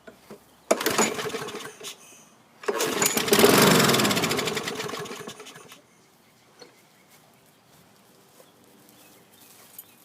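Troy-Bilt 21-inch push mower's 6.5 hp engine being pull-started on a shot of starting fluid. A first pull about a second in, then the engine catches and runs for about three seconds before dying away. Running only on starting fluid is the sign that the carburetor needs cleaning.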